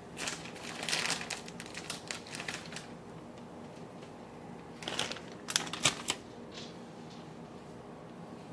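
Two bursts of light rustling and clicking handling noise, the second ending in a few sharper clicks.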